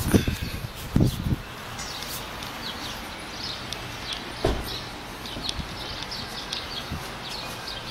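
Small birds chirping many times in quick short calls over a steady outdoor background noise, with a few dull thumps, the loudest about a second in.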